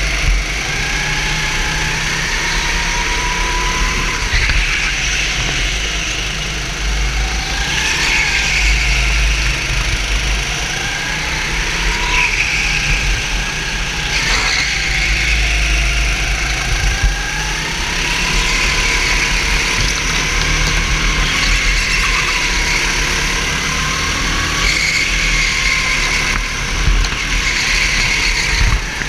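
Racing kart engine heard on board at full race pace, its pitch repeatedly dropping as the driver lifts for corners and climbing again on the straights, every few seconds.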